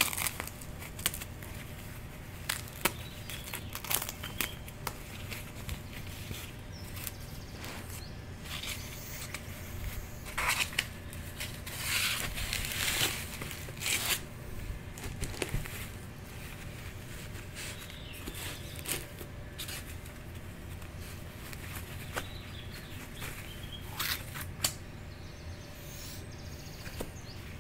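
Plastic packaging crinkling and rustling as a woven plastic bag is pulled open and handled, with scattered sharp crackles and a longer, louder stretch of rustling about halfway through.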